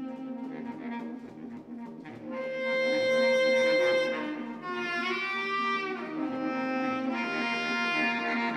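Two baritone saxophones improvising freely in long held tones. A louder sustained note enters about two seconds in, and around five seconds in a note bends in pitch before settling.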